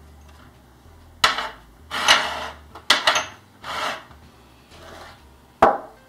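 Ceramic ramekins knocking and clinking three times as they are set down and moved on a tray, with several short scraping and rubbing sounds of dishware sliding in between.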